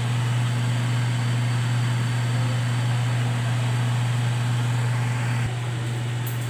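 Steady low hum with a constant hiss, like a running fan or motor, dipping slightly in level shortly before the end.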